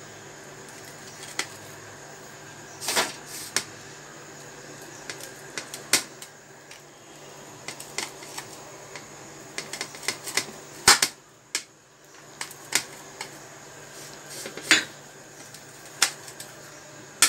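Knife cutting through a bread-based pizza on a serving tray: irregular sharp clicks and scrapes as the blade presses and drags against the crust and tray, the loudest about eleven seconds in.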